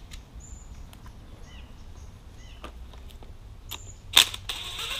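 Light clicks of parts being handled, then about four seconds in a power tool starts with a sharp burst and runs for over a second on the nut at the top of a coilover shock's shaft.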